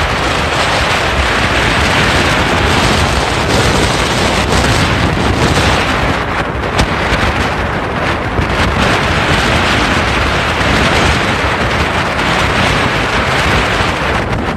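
Heavy wind buffeting on the microphone of a speeding open motorboat, mixed with the rush of water along the hull and the drone of its motor. There is a single sharp click about halfway through.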